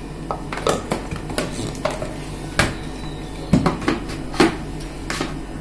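Steel mixer-grinder jar and its lid being handled on the base, giving a run of sharp knocks and metallic clinks, the loudest a few seconds in.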